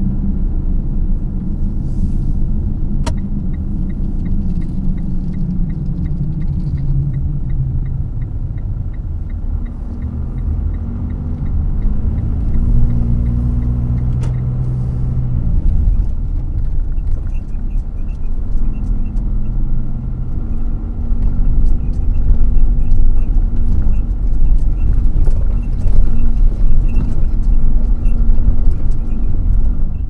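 Car driving, heard from inside the cabin: steady engine and road rumble, with the engine note changing partway through. A turn-signal indicator ticks regularly, about two or three ticks a second, from a few seconds in until about halfway, and again through most of the second half.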